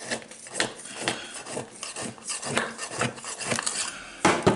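A knife blade scraping and rasping around the inside of a bonsai pot in repeated strokes, cutting through soil and roots to free a root-bound mulberry's root ball. The strokes come unevenly, about two a second, and are loudest near the end.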